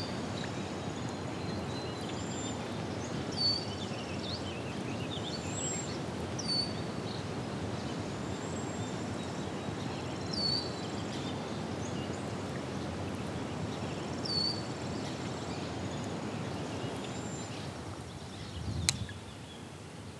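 Steady outdoor background hiss with a small bird calling over it, one short high call roughly every four seconds; a single sharp click near the end.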